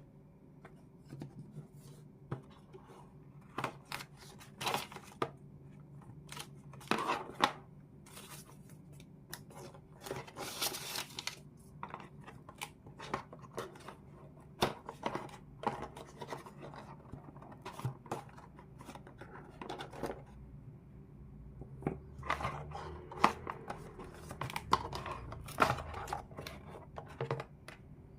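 Packaging being handled and opened: irregular scraping, rustling and clicking of cardboard and plastic, with a longer tearing or peeling sound about ten seconds in.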